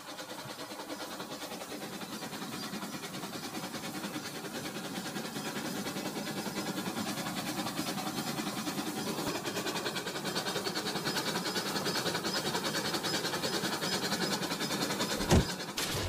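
Battery-powered toy train running on plastic track: a fast, steady clatter of its motor and wheels that slowly grows louder as it comes near. A single sharp clack near the end, as the cars derail and tip over on the curve.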